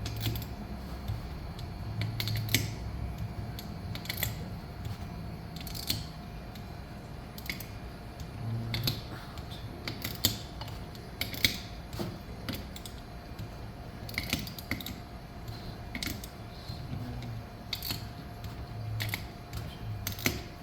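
Hand tools tightening the crankcase bolts of a two-stroke dirt bike engine one after another, in a crisscross pattern: scattered sharp metallic clicks and taps, about one every second or two.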